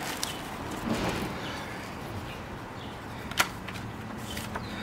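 Rustling from plastic packaging wrap and paper being handled while unpacking a rollator walker. There is a soft thump about a second in and a single sharp click a little past halfway.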